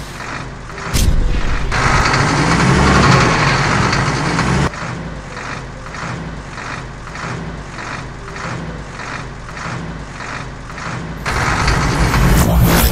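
Cartoon truck sound effects: a low engine-like rumble under an even pulse of about two beats a second. A louder rush runs from about one second in to nearly five seconds, and comes again near the end as a jet thruster fires from the truck's rear.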